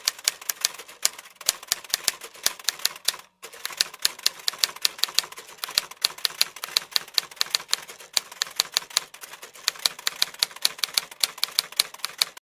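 Typing sound effect of typewriter-style key clicks accompanying text being typed out, several sharp clicks a second with a brief pause about three seconds in.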